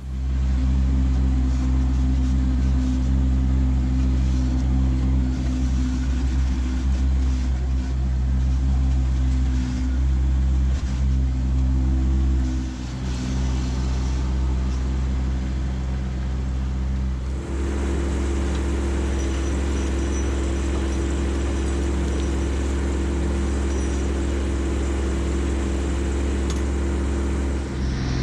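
Kubota B2601 compact tractor's three-cylinder diesel engine running steadily under way. About two-thirds of the way through, the sound changes and gets more hiss-like noise.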